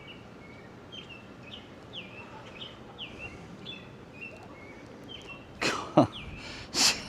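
A bird calling over and over with short chirps that slide downward, about two a second, over steady outdoor background noise. Near the end come a couple of louder, sudden, unidentified noises.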